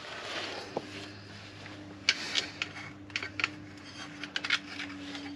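Small clicks and clinks of a stopped cordless angle grinder being handled and its grinding disc checked, a disc that was not fitted properly; the clicks come in a loose scatter from about two seconds in, over a faint steady hum.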